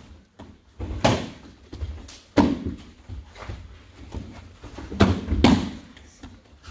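Children's judo-style breakfalls on foam jigsaw mats: bodies and arms landing with thuds and slaps, four impacts about one to two and a half seconds apart.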